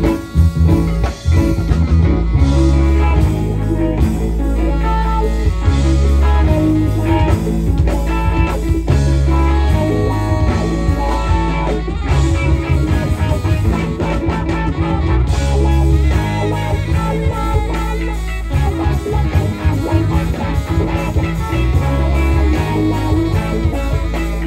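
Live band playing blues-rock, with electric guitar over a steady bass line and drums.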